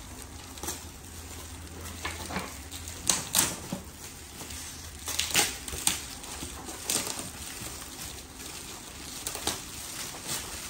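Gift wrapping paper, including shiny metallic foil wrap, being torn and crumpled by hand: irregular crinkles and rips, loudest around three seconds and five and a half seconds in.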